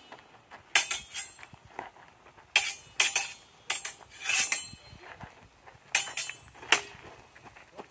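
Steel practice longswords clashing in a sparring drill: a string of sharp metallic clinks, some in quick pairs, with one longer drawn-out clash of blade on blade a little past four seconds in.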